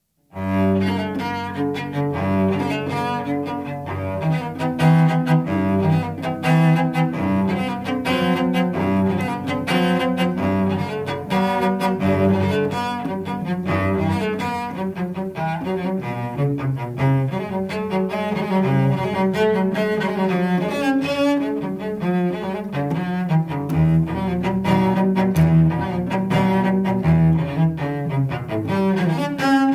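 Cello played with a bow: a flowing melody of sustained notes that begins abruptly about half a second in.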